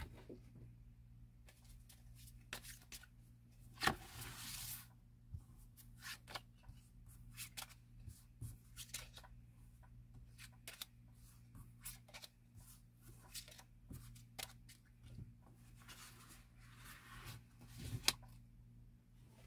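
A deck of tarot cards being spread out, handled and gathered up on a cloth-covered table: light clicks and card rustles throughout. There are longer rustles about four seconds in and again shortly before a sharp snap near the end.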